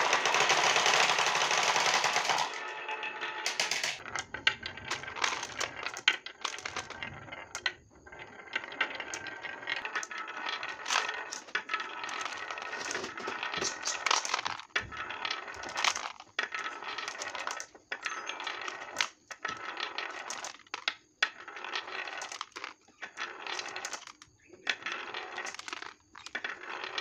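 Many marbles rolling down wavy grooves cut into wooden boards, clicking and clattering against the wood and each other. A loud dense rush of rolling marbles comes first, for about two seconds, then irregular clicks and clacks follow as they run down the track.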